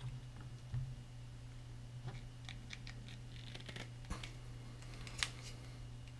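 Small handling noises of a water-wetted latex band being worked onto a Daisy slingshot's metal yoke: scattered light clicks and rubbing, with one sharper click about five seconds in. A steady low hum runs underneath.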